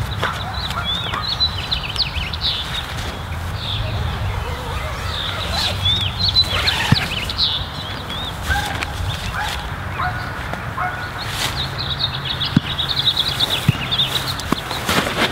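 Small birds chirping in many short, quick calls, over a steady low rumble, with a few sharp clicks.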